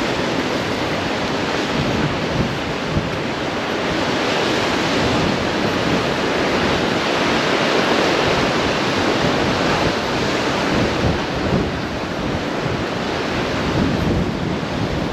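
Steady rush of sea surf washing onto the rocky shore below, mixed with wind on the microphone; it swells a little through the middle.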